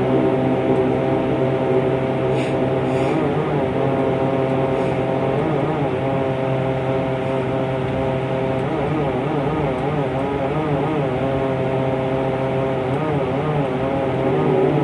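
Propeller airplane's engines running steadily, a droning hum whose pitch wavers slightly now and then.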